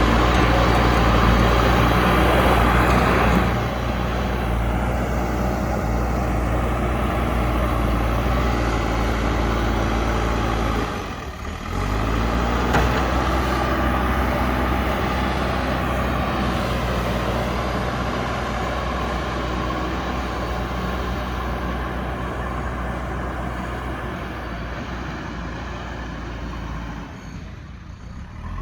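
JCB backhoe loader's diesel engine running steadily while the machine works. It is loudest for the first few seconds and dips briefly about eleven seconds in. It then slowly grows quieter toward the end.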